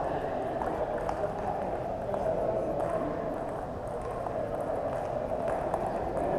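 Echoing sports-hall background: a steady, indistinct murmur of voices with a few faint, sharp clicks of table tennis balls striking paddles and tables.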